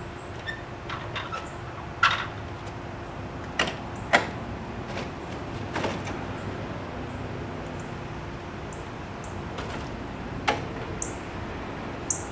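Cut-out sheet-metal panel being knocked out of a metal door's new window opening: a series of sharp metallic knocks and rattles, loudest about two and four seconds in, with a few more near the end.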